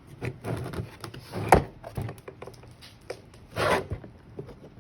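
Hand tools being rummaged through in a tool bag: scattered clicks and knocks with short rubbing scrapes, a sharp knock about one and a half seconds in and a longer scrape a little before the end.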